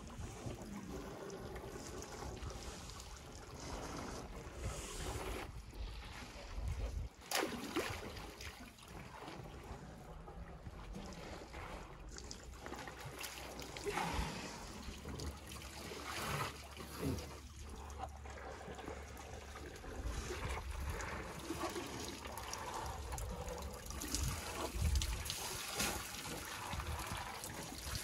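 Water trickling and splashing as elephants drink from a waterhole with their trunks, with a few short splashes standing out.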